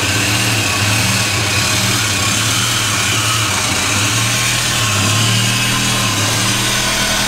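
Electric arc welder running steadily as a V-band exhaust flange is welded onto the pipe, a loud, even crackle with a low buzz underneath.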